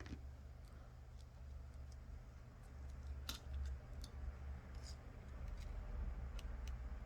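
Faint, scattered small clicks and taps of hand work with tweezers and double-sided adhesive strips, over a low steady hum.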